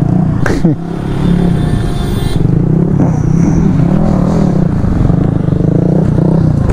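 Motorcycle engine running, its pitch wavering gently up and down, with a brief sharp sound about half a second in.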